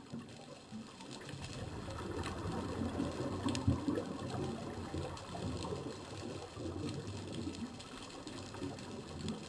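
Underwater ambience as picked up by a GoPro in its housing: a muffled, crackling hiss with scattered clicks and a low rumble, rising in level over the first couple of seconds.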